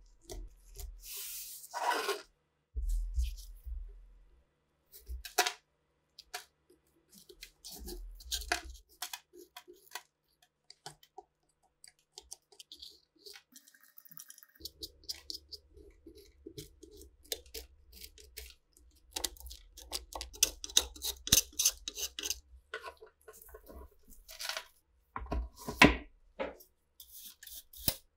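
A metal pick scraping and chipping dried, caked mud and rust off the steel tube of a rusty SA-26 submachine gun, in many short scratches and clicks, with brittle crust cracking and flakes falling onto the table. In the first several seconds there are low knocks as the gun is handled on the tabletop.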